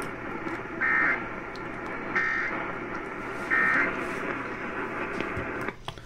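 Three short Emergency Alert System (SAME) data bursts, a buzzy warble of paired tones, come from an AM radio about 1.4 seconds apart over steady radio hiss. Their brevity marks them as the end-of-message (NNNN) code that closes an alert.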